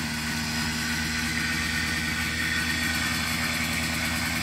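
Small engine of a brush cutter running steadily at an even speed.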